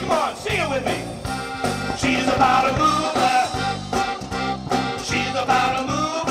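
A band playing an upbeat song with a steady, bouncy beat and a melody line over the bass, in a passage without sung lyrics.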